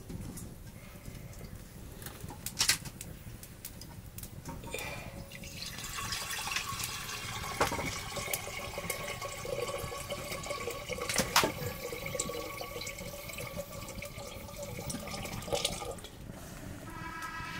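Water poured from a kettle into a metal cooking pot, a steady stream running from about five seconds in until near the end. A few sharp knocks come along the way.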